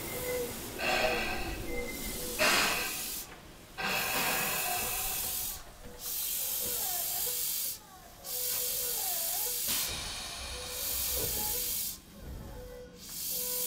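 Compressed air hissing from the underfloor equipment of a Tobu 10030 series electric train, in a string of sharp-edged bursts about one to two seconds long with short gaps between them. A faint steady tone runs underneath.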